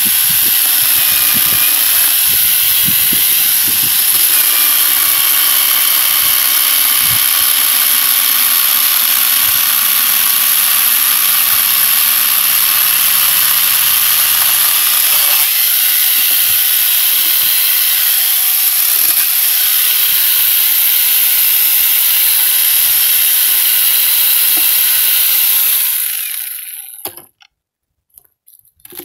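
Electric angle grinder fitted with a chainsaw attachment running at full speed, a steady high whine as its chain cuts through a log. Near the end the motor winds down and stops.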